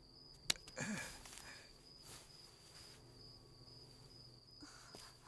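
Faint, steady high-pitched cricket trill in the background, with a single sharp click about half a second in.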